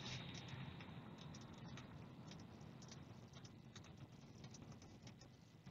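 Faint, uneven run of clicks from keys being typed on a computer keyboard.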